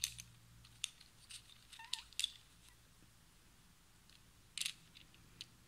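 Faint, scattered light clicks and taps of small plastic toy pieces being handled and dropped into a little plastic basket.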